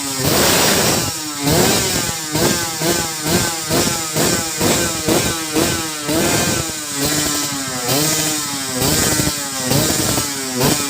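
Viar trail motorcycle with a Kawasaki Ninja 150 two-stroke engine, revved in short repeated bursts. The pitch climbs and falls back about twice a second, with a few slower, longer revs partway through.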